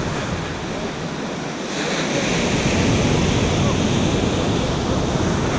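Ocean surf: a wave breaking and washing up the sand. The rushing noise swells about two seconds in as the wave crashes, then holds.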